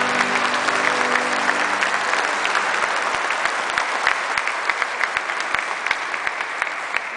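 Congregation applauding, dense clapping with a few held music notes ending about two seconds in. The applause slowly thins and dies away toward the end.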